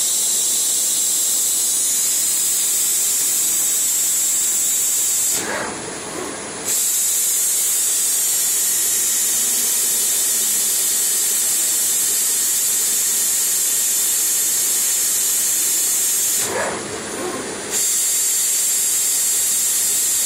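FEBA 2L 200 lathe log slitter running, a steady high hiss as its circular blades cut a log of adhesive tape into rolls. Twice, about eleven seconds apart, the hiss drops out for about a second and a lower whoosh is heard instead.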